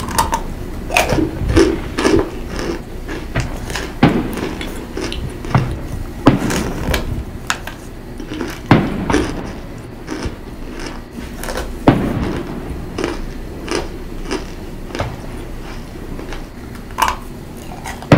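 Close-up crunching of chunks of compressed cornstarch being bitten and chewed: irregular dry crunches and snaps, with a few louder, heavier ones.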